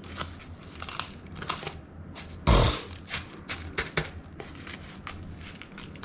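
Dry crushed Funyuns onion-chip crumbs crackling and crinkling as fingers press and toss a crappie fillet in them in a plastic container. A dull thump stands out about two and a half seconds in.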